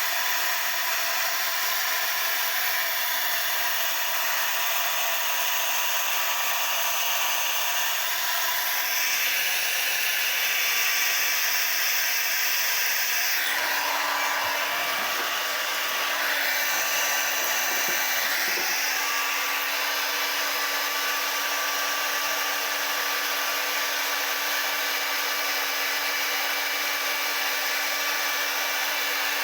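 Hand-held hair dryer blowing steadily, its tone shifting a little near the middle and a low hum joining in partway through.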